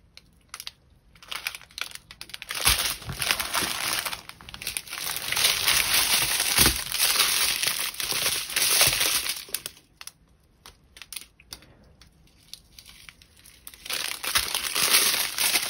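Small plastic bags of diamond-painting drills crinkling and rustling in bouts as they are picked up and sorted, with a couple of soft knocks. The crinkling drops off for a few seconds near the end, then starts again.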